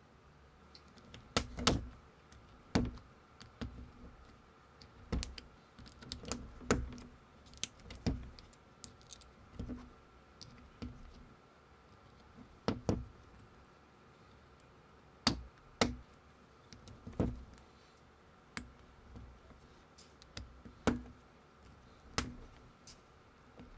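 LEGO-compatible plastic bricks and minifigure parts being handled and pressed together, giving irregular sharp clicks and snaps with pauses between them. A faint steady hum runs underneath.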